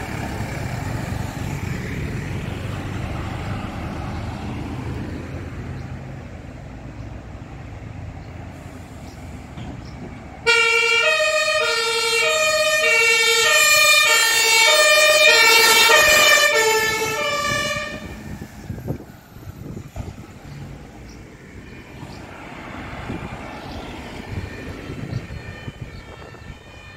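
A fire truck's diesel engine running as it pulls away, fading over the first ten seconds. About ten seconds in, a turntable ladder truck's German two-tone siren (Martinshorn) comes on suddenly and loud, alternating between two tones for about seven seconds before it stops. Near the end, a fainter two-tone siren sounds.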